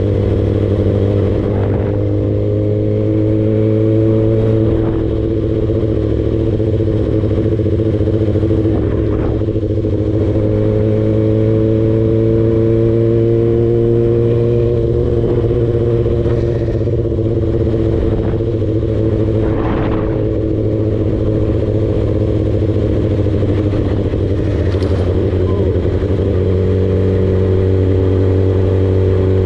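Yamaha R6 sport bike's inline-four engine running continuously at steady riding revs, its pitch drifting slowly up and down as the throttle varies.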